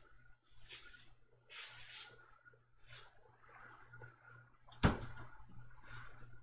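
Soft rustling swishes repeat every second or so as the cat toy and the sheet are handled. A single sharp knock a little under five seconds in is a tossed cat toy landing on the floor.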